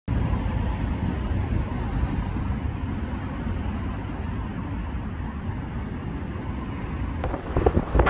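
Wind buffeting the microphone outdoors: a steady low rumble that turns gusty near the end, with irregular crackling surges.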